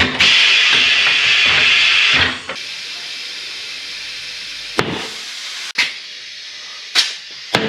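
Compressed air hissing: a loud burst for about two seconds, then a quieter steady hiss broken by four sharp clicks.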